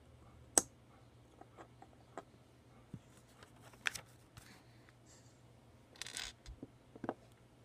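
Small plastic Lego pieces clicking and being handled, with a few sharp clicks, and a brief papery rustle as the instruction booklet page is turned.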